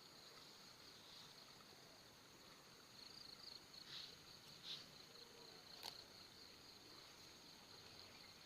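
Faint, steady high-pitched chirring of insects such as crickets, with a few louder chirps in the middle and a single short click about six seconds in.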